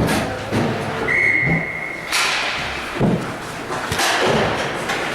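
Ice hockey rink sounds: sharp thuds and slams of puck, sticks and bodies against the boards, echoing in the arena, about four in all. Just before the second slam there is a steady high tone lasting about a second.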